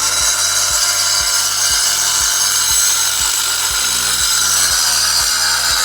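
Music with a steady beat of about two a second, under a loud, harsh hissing layer.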